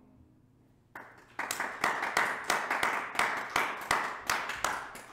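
Hand clapping by one or a few people, separate sharp claps about three a second with a short echo, starting about a second in and slowing near the end. Before it, the last piano chord dies away.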